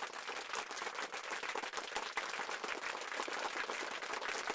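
Applause: many hands clapping at an even level, dense and unbroken.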